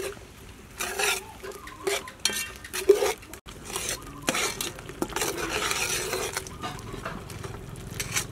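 Metal ladle stirring in an aluminium pot of steaming soup broth, scraping and knocking against the pot, with several sharper strokes in the first three seconds.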